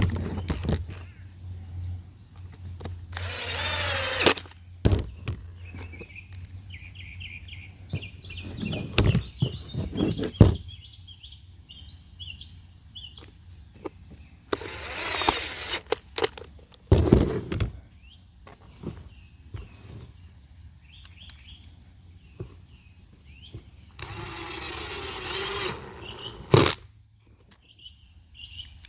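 A small power tool's motor runs in three short bursts, with knocks and clatter of parts being handled in between; birds chirp in the background.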